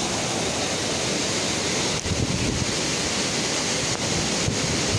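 Heavy rain pouring down steadily in strong storm wind, with gusts buffeting the microphone.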